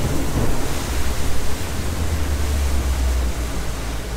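Rinker 296 Captiva bowrider underway: a steady rush of wind and water over a deep rumble from the hull and engine.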